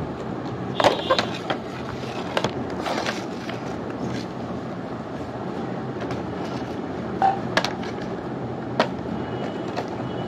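Plastic toys being handled close to the microphone: a steady rustling, scraping noise with several sharp plastic clacks.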